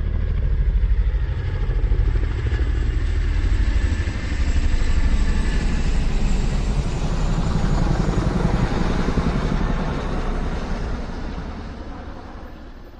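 A loud engine running, with a rapid low pulsing that swells and dips, then fades away near the end.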